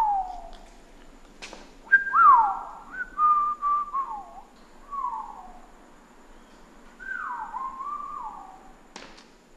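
A person whistling a slow, wandering tune of sliding notes, most of them falling in pitch, with a pause of a second or so midway. There are a couple of sharp clicks, one early and one near the end.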